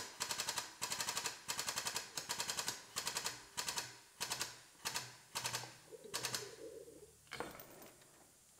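Frame-straightening pulling tower working in short bursts, its pump clattering with rapid clicks as the chain pulls the crushed rear quarter panel of a 2013 Buick Enclave outward. About a dozen bursts come roughly every half second to second, then thin out and fade after about five seconds.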